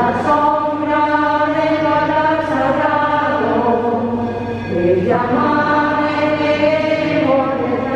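Voices singing a slow hymn in long held notes, with a short break about five seconds in before the next phrase begins.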